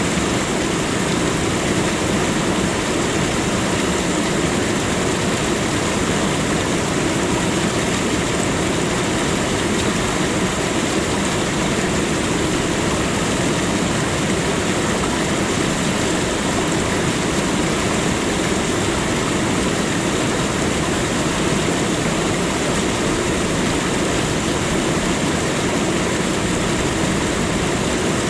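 Waterfall, water falling and crashing in a steady, unbroken roar.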